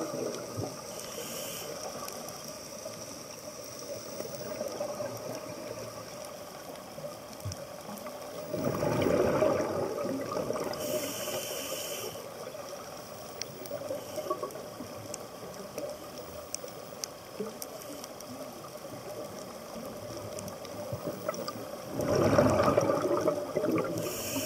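A scuba diver breathing through a regulator underwater: two loud bursts of exhaled bubbles, about 9 and 22 seconds in, each followed shortly by a brief high hiss of the regulator on the inhale, over a steady underwater hiss.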